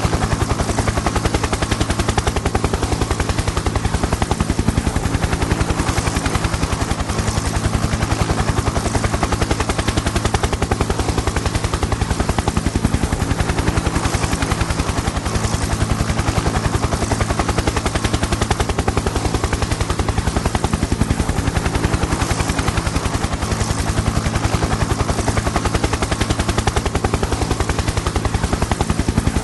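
Helicopter in flight: the main rotor's fast, even chop over a steady engine hum.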